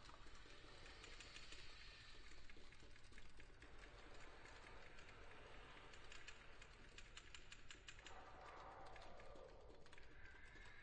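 Near silence broken by faint, irregular light clicks, thickest in the middle and thinning toward the end.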